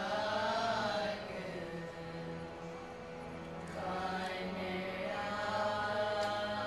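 Group of girls singing a Sikh shabad in unison in raag Kanara, accompanied by harmoniums. A sung phrase at the start gives way to a softer stretch, and the voices swell back in about four seconds in.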